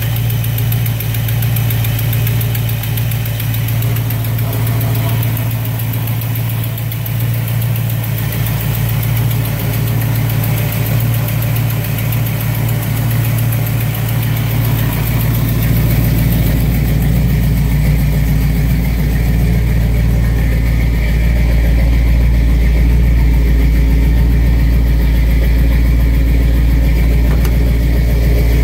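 The 1971 Chevrolet C20's carbureted V8 is idling steadily and grows somewhat louder about halfway through. It runs slow-revving and short of vacuum, which the owner puts down to the timing being a tooth out.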